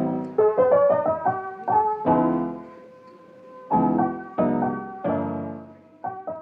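Background music: a soft piano tune of struck chords and melody notes that ring and fade, with a quieter stretch in the middle.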